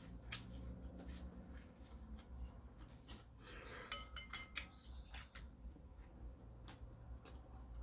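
Wooden chopsticks clicking against a ceramic bowl as noodles are picked up, with a few short ringing clinks about four seconds in, and soft eating sounds.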